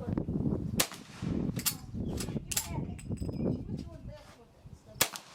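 Gunshots, several sharp cracks less than a second apart. The loudest comes about a second in and another near the end, with fainter ones between.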